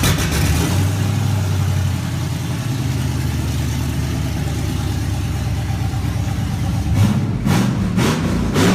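An engine idling steadily, then revved in a few quick blips near the end.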